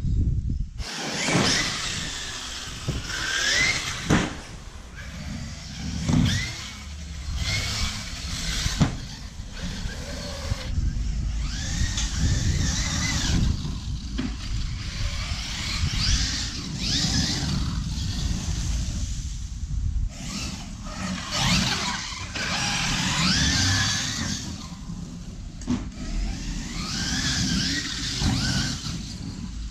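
Large-scale radio-controlled truck's motor revving up and down in bursts as it is driven hard and jumped, with a whine that rises and falls and sharp knocks now and then.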